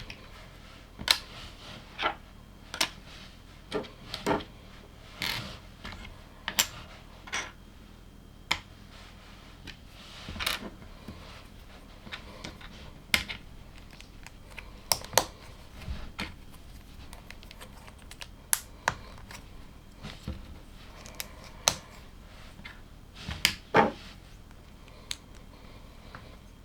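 Plastic LEGO pieces being handled and pressed together: irregular sharp clicks and taps, with a few louder ones close together.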